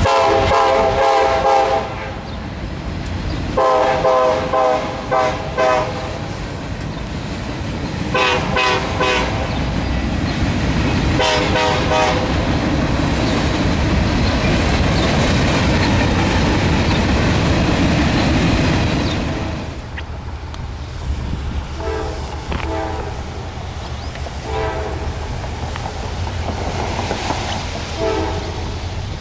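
Diesel freight locomotive's air horn sounding four loud blasts of one to two seconds each in the first twelve seconds. Under them a long freight train rolls past with a steady rumble of wheels, which drops off after about nineteen seconds. Fainter short horn blasts follow near the end.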